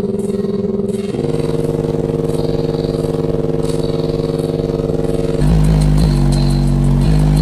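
Electronic dance music played loud through a car's high-power subwoofer system, with held synth chords; about five seconds in, a heavy deep bass line comes in and the car audio gets louder.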